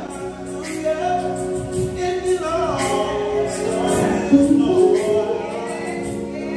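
Live gospel worship song: a small group of male and female singers singing together, backed by a band of electric bass, drums with cymbals, and organ and keyboard.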